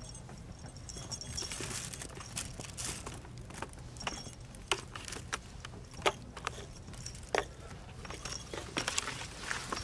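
Scattered crinkles, rustles and light clicks as cats paw and bat at a string wand toy inside a cardboard gift box lined with paper.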